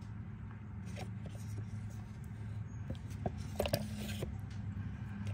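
Wooden paint stir stick stirring a thick liquid fertilizer mix in a plastic cup, with faint scattered scrapes and taps against the cup, over a steady low hum.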